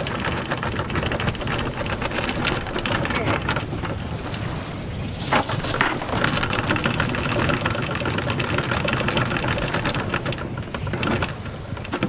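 Anchor chain clattering steadily as it is hauled in over the sailboat's bow to raise the anchor, with one louder clank about five seconds in.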